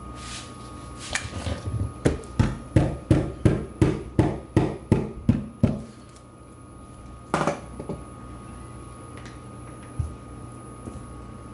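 A rabbit-food pellet being pounded to powder on paper over a hard tabletop: a few light taps, then about a dozen sharp, even knocks at about three a second. A single knock follows a second or so later.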